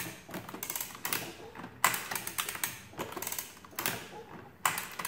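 The bare mechanism of a 1916 Burroughs Class 3 adding machine clicking and clattering as it is worked by hand, in irregular bursts of metal clicks with one sharp, loud click about two seconds in.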